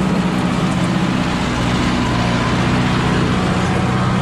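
Kubota MU5501's four-cylinder diesel engine running steadily under heavy load, pulling an 8 ft rotary seeder through hard soil. It holds its speed at about 1800 rpm without dropping.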